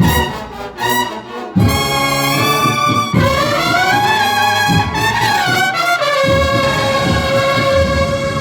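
Brass band playing, with trumpets holding long sustained notes.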